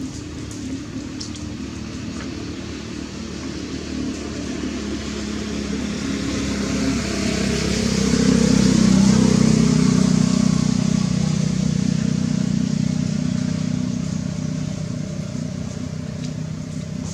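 A motor vehicle driving past: its engine hum and tyre noise build up to a peak about halfway through, then slowly fade away.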